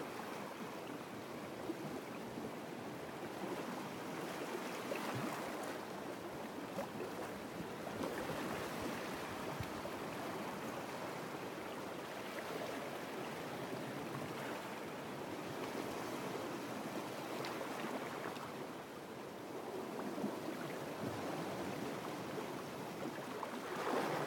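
Small waves washing against a rocky shoreline, swelling and easing every few seconds.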